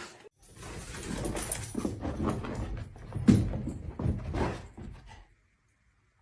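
A dog's vocal sounds, several short ones over about five seconds.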